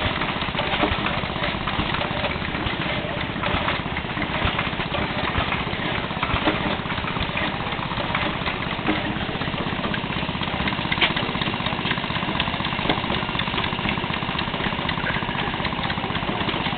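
Antique hit-and-miss stationary gas engine running: a steady mechanical beat with occasional sharper knocks.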